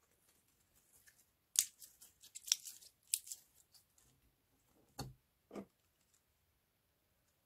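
Slime and its containers being handled by hand: a run of crisp crackling clicks, then two soft, dull thumps about half a second apart.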